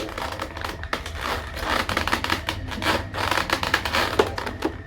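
Plastic packaging rustling and clicking as a toy figure is handled in its tray, with a quick run of small taps and scratches.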